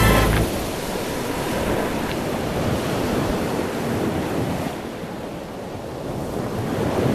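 Ocean surf washing onto a sandy beach, a steady rushing that swells and eases, with wind on the microphone.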